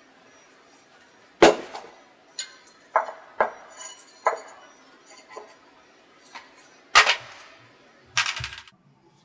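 Outboard scroll housing of an Agilent IDP15 dry scroll pump knocking and clanking on a tabletop as it is set down and handled: a string of sharp metal knocks, the loudest about one and a half seconds in and again about seven seconds in, then a short rustle near the end.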